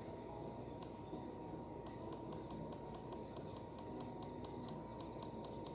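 A quick run of light clicks, several a second, starting about two seconds in, over a steady low hum with a faint thin tone.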